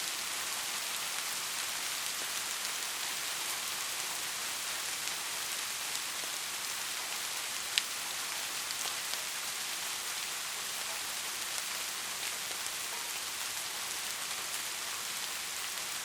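Steady heavy rain hiss with scattered individual drop ticks, one sharper louder drop impact about halfway through.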